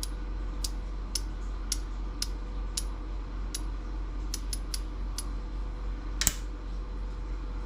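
Small cast-metal scrap pieces clicking and clinking against each other and a hard surface as they are handled, a dozen or so sharp, irregular clicks with one louder knock about six seconds in, over a steady low hum.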